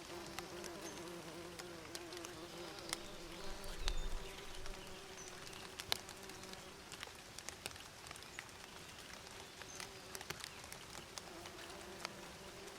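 Bees buzzing, a steady drone whose pitch wavers as the insects move about, with scattered faint ticks.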